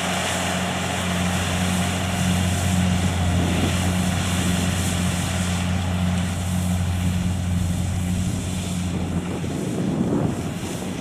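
Kubota DC70 rice combine harvester's diesel engine running steadily under load as it cuts and threshes rice: a constant low drone under a broad rushing noise from the cutter and threshing drum. The low drone drops away about nine seconds in.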